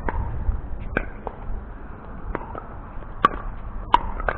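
Pickleball rally: sharp pops of paddles striking the plastic ball, about seven hits at uneven spacing, the two loudest near the end, over a low rumble.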